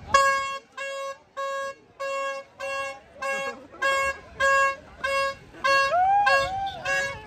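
Pink plastic toy trumpet blown in short, repeated toots at one steady pitch, about two a second.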